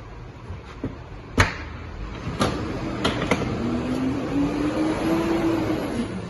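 Knocks and clatter of a carpeted cargo floor panel being lifted and moved around in an SUV's cargo area, the sharpest knock about a second and a half in. From about two seconds in a steady hum joins, rising a little in pitch before dropping away near the end.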